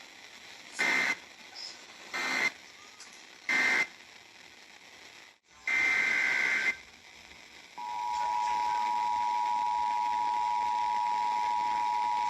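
Emergency Alert System data bursts: three short warbling digital bursts, then a longer one, the end-of-message and header codes of the warning. From about eight seconds in, the steady two-tone EAS attention signal sounds, a harsh dual-pitched beep.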